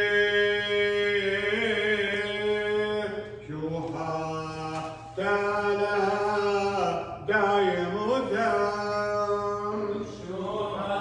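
Liturgical chanting: a sung voice holding long notes with ornamented turns, pausing briefly for breath a few times.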